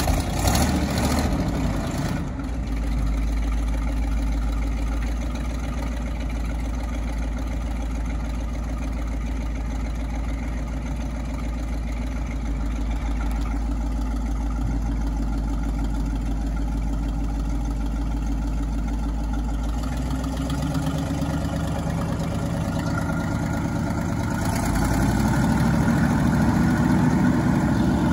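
1969 Chevrolet C60 truck's engine idling steadily. About twenty seconds in the sound changes, and near the end the engine runs louder and a little higher as it drives the hydraulic hoist raising the dump box.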